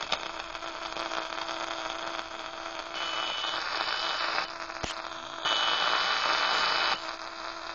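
1965 transistor radio tuned off-station: steady hiss and static with a low hum. A high, steady whistle comes in about three seconds in, drops out with a click, and returns louder a couple of seconds later.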